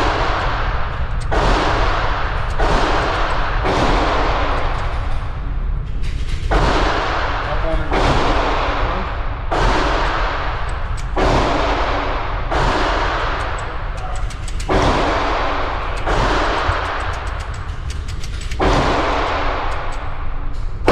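A series of about fourteen gunshots, spaced a second or two apart, each with a long echoing tail, over a steady low rumble.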